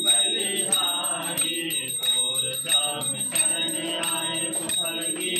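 A puja hand bell ringing on and on, with rhythmic hand-clapping and a group singing the aarti.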